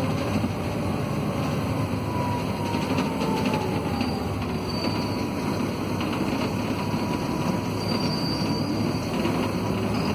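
Volvo D7C six-cylinder diesel and ZF Ecomat automatic gearbox of a Volvo B7RLE city bus, heard from inside the passenger cabin as the bus drives along. A steady rumble carries a faint whine that falls slowly in pitch over the first few seconds and begins to rise near the end as the bus accelerates.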